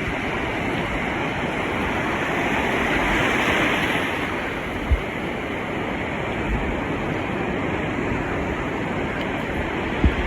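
Ocean surf breaking and washing up the beach, a steady rush that swells about three to four seconds in. A brief low bump about five seconds in.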